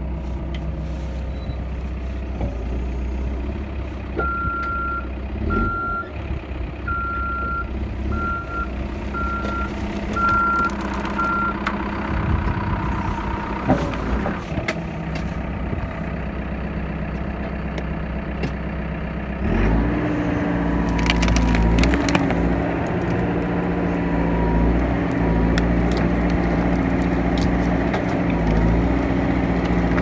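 Backhoe's diesel engine running, with its reversing alarm beeping about once a second from roughly four to eleven seconds in. About two-thirds of the way through, the engine grows louder under load as the bucket breaks into a beaver lodge, with sticks cracking and snapping.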